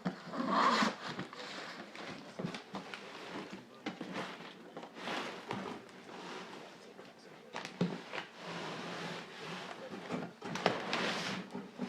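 Packaging being handled and opened: repeated rustling and scraping with scattered sharp clicks and knocks.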